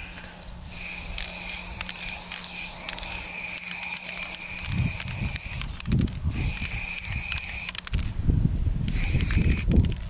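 Aerosol spray-paint can hissing in three bursts: a long one of about five seconds, a shorter one after a brief pause, and a short one near the end.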